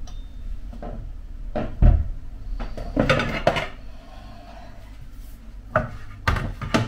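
Kitchen handling clatter: several knocks and clacks of a cutting board, dishes and a spoon being handled and set down, the loudest about two seconds in and a quick run of clacks near the end, over a low steady hum.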